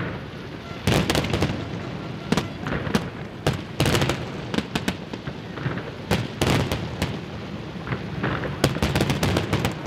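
Fireworks display: aerial shells bursting overhead in a rapid, irregular run of sharp bangs and booms, one on top of another with ringing between them.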